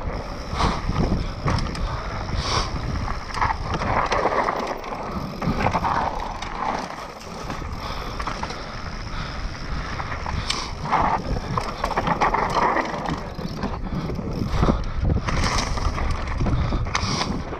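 Mountain bike ridden fast down a dirt trail: tyres rolling over dirt and roots, with the bike's chain and frame rattling and knocking many times, and wind on the microphone.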